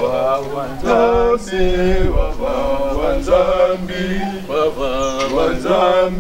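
A man singing, with long held notes that waver in pitch and short breaks between phrases.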